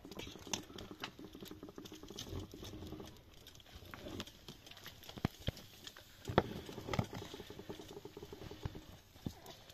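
Light clatter of cooking at a wood fire: a metal spoon knocking and scraping in a metal cooking pot as it is stirred, lifted off the fire and set down, in scattered short clicks and knocks.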